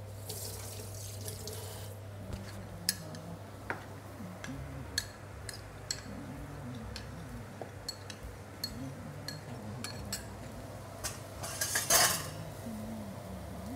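A spoon clinks against cookware in scattered light taps as liquid is poured and stirred for a sauce, with a pouring hiss in the first two seconds and a louder splash about twelve seconds in. A steady low hum runs underneath.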